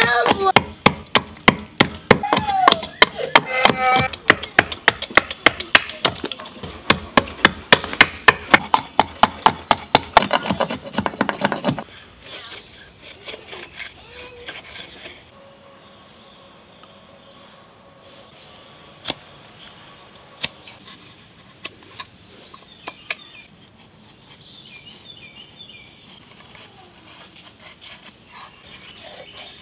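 Hatchet blade chopping into a pine spoon blank on a stump: rapid sharp strikes, about three a second, that stop about twelve seconds in. After that comes the faint scraping of knife carving, with a few soft clicks.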